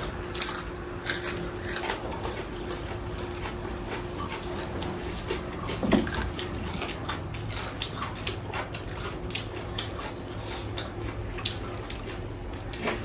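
Eating sounds: scattered short crunches and clicks of chewing and handling food, over a steady low hum, with one brief low sound about six seconds in.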